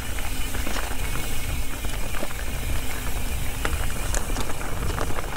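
Ibis Ripmo v2 mountain bike ridden fast down a rocky trail: tyres crunching over loose rock and dirt, with scattered sharp clicks and rattles from the bike and a steady low rumble.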